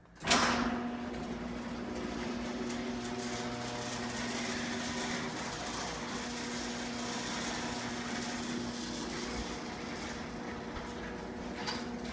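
A 1996 LiftMaster 1260 1/2 HP chain-drive garage door opener starts with a sharp click and runs steadily, its motor humming as the chain hauls the door along its track. The chain has just been lubricated so it squeaks less.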